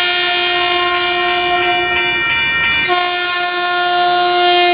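Caltrain commuter train's horn sounding two long blasts approaching a grade crossing, a short break about two seconds in; the second blast begins to drop in pitch near the end as the train comes up to the crossing. The crossing's warning bell rings steadily underneath.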